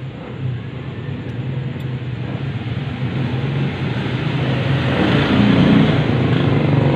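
A motor vehicle engine running with a steady low hum, getting steadily louder and fuller over the last couple of seconds.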